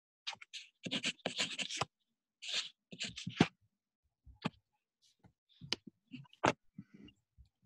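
Writing on paper: short, irregular scratching strokes with scattered clicks.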